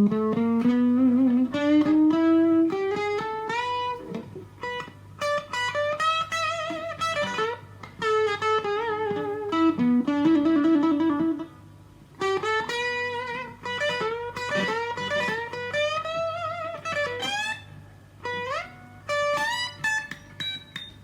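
Electric guitar, an FGN Stratocaster plugged straight into a Fender Studio Valve tube amp, playing a single-note lead line with string bends and slides. The phrases are broken by short pauses, over a steady low amp hum.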